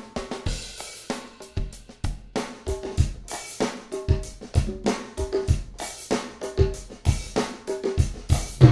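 A multitracked drum kit (kick, snare, toms, overheads and percussion) playing a steady groove, fed through the IK Multimedia Fame Studio Reverb's Muscle Shoals studio room emulation on a send.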